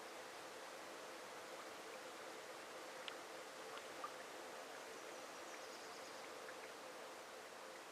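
Small forest trout stream running: a faint, steady rush of water, with a few small ticks about three to four seconds in.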